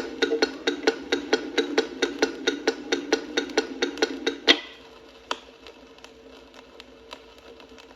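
Trafficator (turn-signal flasher) of a 5-ton Austin diesel truck ticking steadily at about four clicks a second. It stops with a louder click about four and a half seconds in, followed by one faint click and a faint steady hum.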